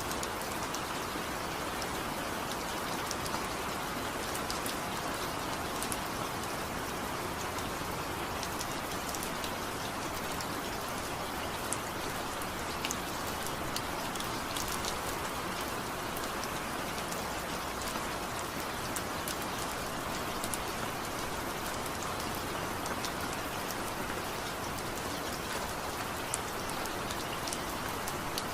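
Steady rain falling, an even hiss with many small drop ticks, and no thunder.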